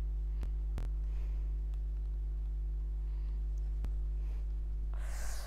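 Steady low hum, with a few faint clicks and a short rustle near the end as a padded bubble-wrap mailer is handled.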